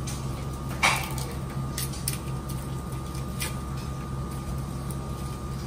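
A few small plastic clicks and taps from modeling-clay pots and lids being handled, the loudest about a second in, over a steady low hum.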